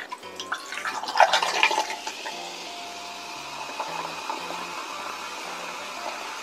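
Coca-Cola poured from a can into a glass mug of ice. A few sharp clinks and splashes over the first two seconds, then a steady pour with the fizz of the carbonation.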